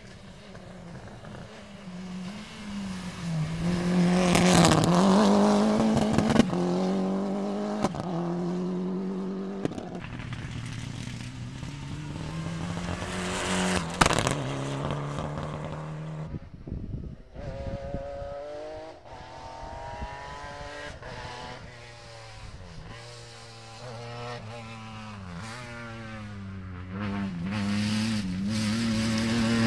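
Rally car engines at full throttle on a special stage: one car revs hard and shifts up through the gears as it approaches and passes, loudest about five seconds in. Sharp pops come as it lifts off, then the engine note sweeps up and down as it fades. A second car comes on loudly near the end.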